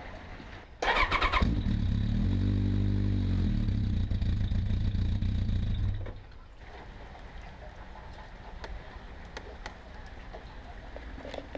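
Vehicle engine fitted with a replacement exhaust silencer starting about a second in with a short burst, settling into a steady run for about five seconds, then switched off.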